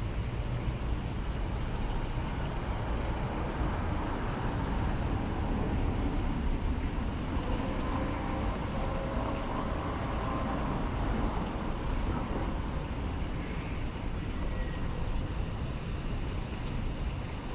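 City street traffic: a steady rumble of passing cars and scooters, with wind buffeting the microphone. A passing vehicle's engine hum swells briefly near the middle.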